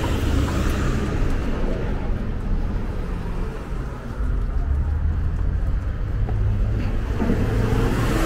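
Road traffic noise: a steady low rumble of passing vehicles, dipping briefly about four seconds in and then louder.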